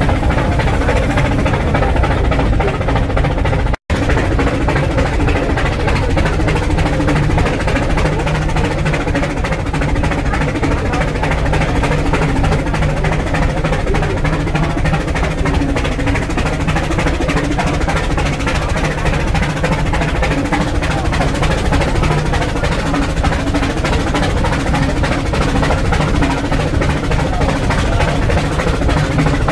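Rack-railway steam locomotive working uphill: a steady, rapid beat of exhaust puffs with mechanical clatter, broken by a momentary dropout about four seconds in.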